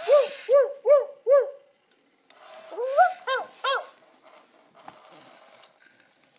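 Genibo SD robot dog's speaker playing electronic dog-like yips: four short arched notes in quick succession, then after a pause a rising whine and two more yips.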